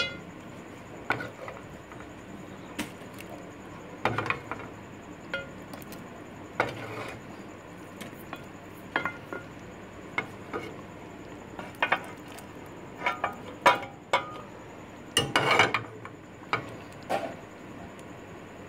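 A wooden spoon knocking and scraping against an aluminium pot and a grill pan as pieces of grilled chicken are scooped into curry sauce and stirred in. Irregular clinks and knocks, the loudest cluster about fifteen seconds in.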